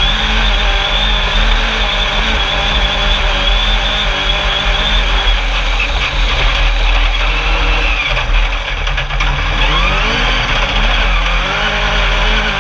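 Alumicraft Class 10 off-road race buggy's engine running hard at speed over sand. Its pitch holds steady, then dips and climbs again in the second half as the driver comes off and back on the throttle.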